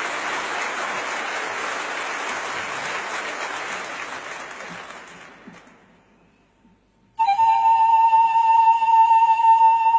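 A soft hiss that fades out over about five seconds, a short silence, then one steady high note held, like a flute, opening a relaxation track.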